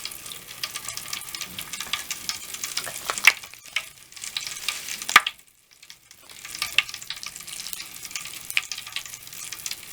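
Mr. Bubble Magic Bath Crackles popping and fizzing: a dense, irregular run of tiny snaps over a high fizz, with a few louder cracks. The sound drops out briefly a little past halfway.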